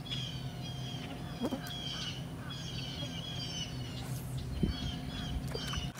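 Small birds chirping in quick, repeated short notes, over a steady low hum.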